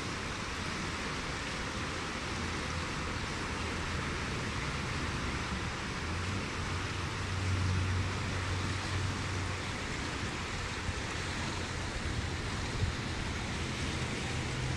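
Fast, muddy floodwater in a swollen creek rushing past a drainage grate, a steady rushing noise, with a low rumble swelling around the middle.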